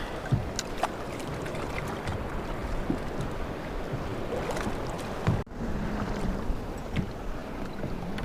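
Water sloshing against the hull of a small fishing boat, with scattered light knocks. The sound cuts out briefly about five and a half seconds in.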